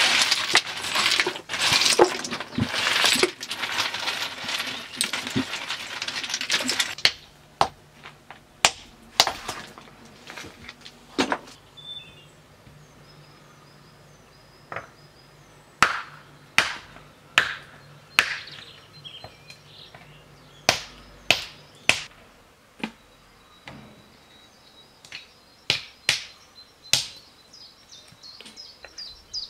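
Hard objects clattering and clinking together for about seven seconds, then single sharp knocks and taps at irregular intervals, some in quick pairs.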